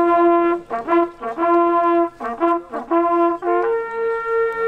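Two Pless hunting horns, small coiled brass horns, blown together in a hunting signal: a run of short notes stepping between two pitches with brief breaks, then a long held higher note near the end.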